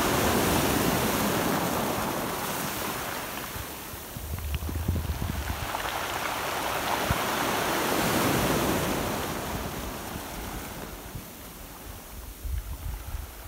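Small waves breaking and washing up a pebble beach, swelling and receding twice: loud at the start, dipping about four seconds in, rising again around eight seconds, then fading. Wind rumbles on the microphone at times.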